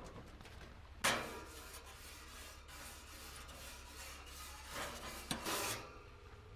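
Grill brush scrubbing back and forth over the metal grates of a hot barbecue. The steady scraping starts sharply about a second in and grows a little louder near the end. It is the grill being cleaned while hot so food won't stick.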